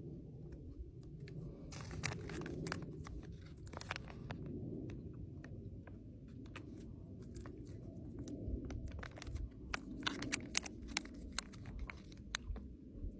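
Crinkling of a foil-laminate ration wrapper being handled, in irregular crackles that come in clusters about two and ten seconds in, over chewing and a steady low rumble.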